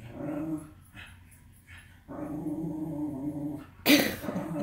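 A dog making drawn-out, grumbling moans: a short one at the start and a longer one about two seconds in. Near the end comes one sudden, loud, sharp bark.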